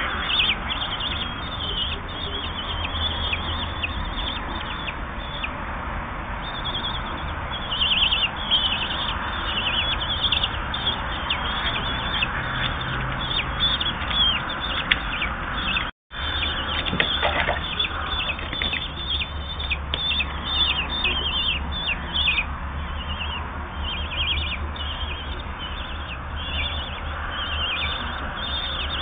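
Common kestrel nestlings begging at feeding time: a dense, continuous chorus of rapid, high-pitched chirping calls. The sound cuts out completely for a split second about halfway through.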